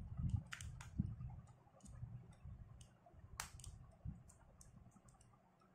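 Light, irregular metallic clicks and ticks as a precision screwdriver works a small screw out of a spinning reel's metal body, with one sharper click about three and a half seconds in.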